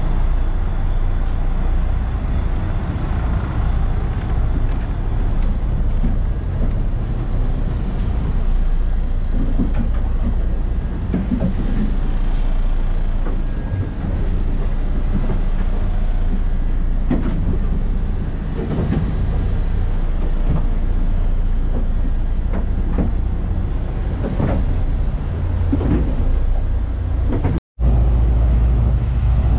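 Steady low drone of the 61-foot sportfishing boat's diesel engines, heard from inside the cabin, with scattered knocks and clatter. Near the end the sound drops out for an instant and comes back as a louder, deeper engine rumble out on the open stern.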